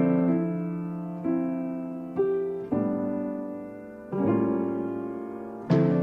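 Background piano music: slow chords, each struck and left to fade before the next, about five in all.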